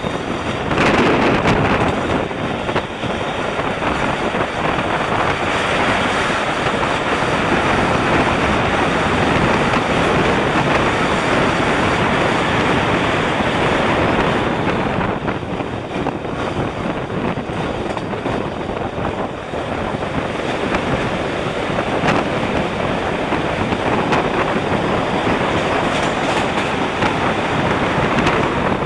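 Pune–Delhi Duranto Express running at high speed, heard from an open coach door: a loud steady rush of wheels on rails with wind buffeting the microphone. The sound changes partway through as the train runs into a rock tunnel.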